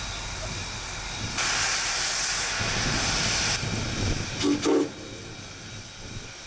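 Southern Railway 630, a 2-8-0 steam locomotive, letting off a loud hiss of steam for about two seconds that cuts off sharply, followed a second later by two very short low toots.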